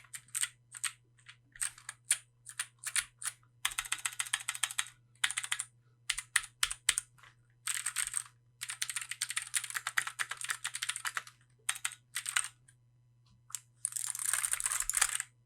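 Keychron Q1 gasket-mount mechanical keyboard with factory-lubed Gateron Phantom Blue switches being typed on. Single keystrokes for the first few seconds give way to fast runs of typing with short pauses between, ending about a second before the end.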